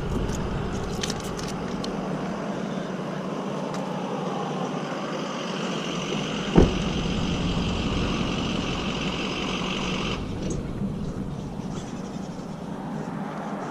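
A road vehicle running steadily, with one sharp knock about six and a half seconds in.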